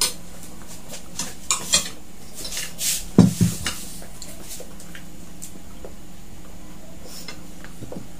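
Cutlery clinking and scraping against plates and disposable food containers as fried chicken is picked apart at a table. A few louder knocks about three seconds in come as a drinking glass is set down on the table.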